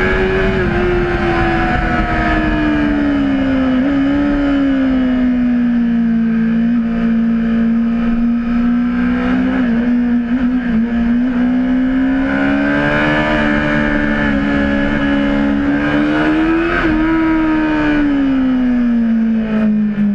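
Honda CBR600RR inline-four engine at high revs, heard on board. Its pitch falls over the first few seconds, holds steady, climbs slowly, then drops again near the end, with a rushing noise underneath.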